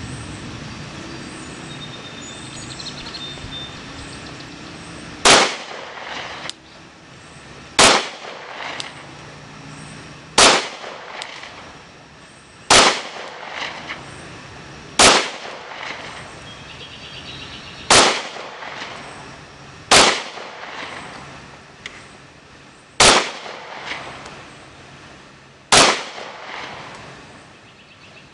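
Glock 23 Gen 4 .40 S&W pistol fired slowly at a target, nine single shots spaced about two to three seconds apart beginning about five seconds in, each shot followed by a short echo.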